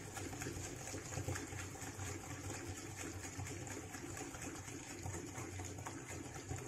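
Hand whisk beating oil and powdered sugar in a glass bowl: a steady, fast swishing with faint rapid ticks of the wire against the glass.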